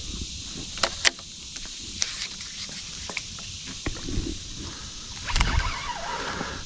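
Scattered sharp clicks and knocks of gear being handled in a small fishing boat, then a louder rustle with low thumps about five seconds in, over a steady high outdoor hiss.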